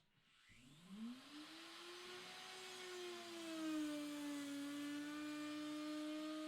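Electric wood router switched on with a click, its motor spinning up in a rising whine and then running at full speed, the pitch sagging slightly once and holding steady.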